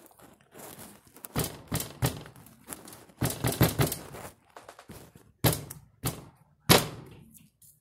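A hand slapping and pounding food on a glass stovetop to mash it: a string of sharp thuds and slaps at uneven intervals, with a quick flurry of blows in the middle.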